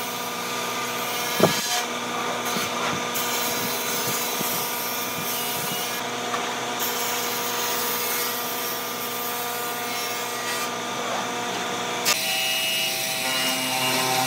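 Steady hum of workshop machinery with light scraping and tapping as a steel rule and pencil mark out a pine board, one sharp knock about a second and a half in. Near the end the hum changes abruptly to a different machine tone.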